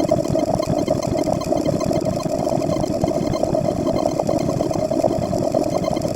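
A steady, rapid engine-like rumble with a fast flutter, running evenly without a break.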